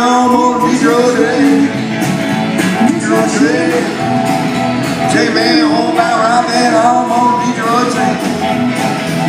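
A live country-rock band playing with singing: strummed acoustic guitar, electric guitar and upright bass under a sung melody.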